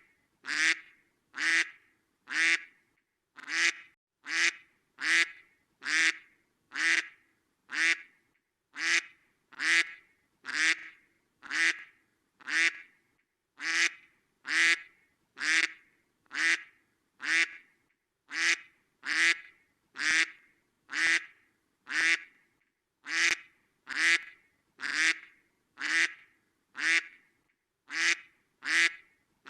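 A duck quacking over and over in short, alike quacks, about two a second.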